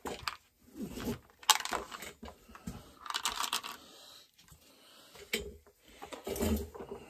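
Handling noises of tools and small parts on a workbench: scattered sharp clicks and clinks, the loudest about a second and a half in, a short rustling hiss around the middle, and a few duller knocks near the end.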